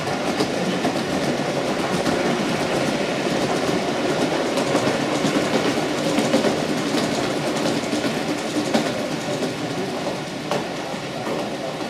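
Gauge 1 model train, a diesel locomotive hauling coaches, running along the track with a steady rumble and many small wheel clicks. It fades a little near the end as it moves away.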